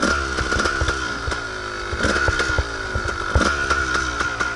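Kawasaki KDX220 dirt bike's two-stroke single-cylinder engine, revved in short throttle blips six or seven times, each rise falling straight back down.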